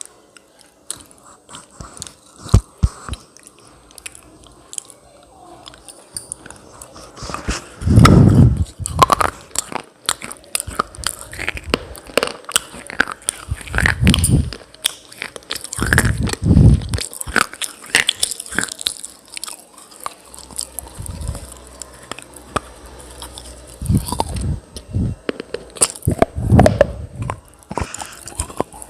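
A person biting and chewing hard, brittle pieces of clay close to the microphone, with a steady run of sharp crunches and heavier, louder bites about 8, 14, 16 and 24–27 seconds in.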